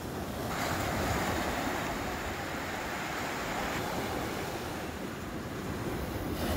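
Small Black Sea waves breaking and washing up a sandy beach: a hiss of surf that swells about half a second in and eases off near the end.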